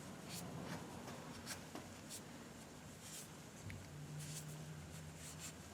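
Faint, repeated scratchy rubbing strokes as wood stain is worked over a carved oak handle. A low steady hum comes in about four seconds in.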